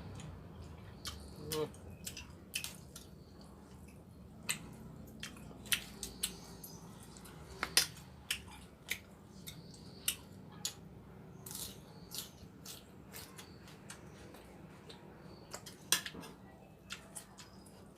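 Eating utensils clicking and tapping against a noodle-soup bowl during a meal: irregular sharp clicks, roughly one or two a second.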